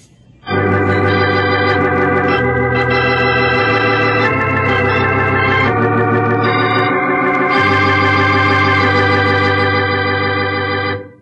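Organ music bridge in a radio drama: sustained organ chords over a bass line that changes note several times, cutting off near the end.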